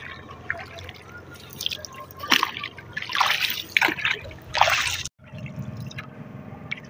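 Water splashing and dripping against a small outrigger boat, with three louder splashes in the middle. The sound cuts out for an instant about five seconds in, then goes on as a lower, steadier water noise.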